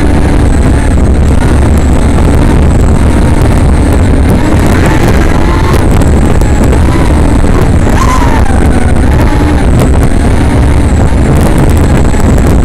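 Small 3-inch FPV racing quadcopter heard from its onboard camera in flight: a loud, heavy rumble of wind and prop wash on the mic, with the motors' whine rising and falling in pitch as the throttle changes.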